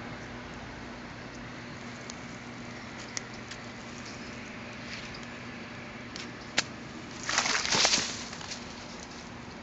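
Quiet outdoor background with a few faint clicks, then about seven seconds in a burst of rustling and scraping lasting about a second as the camera is handled and swung over dry leaf litter.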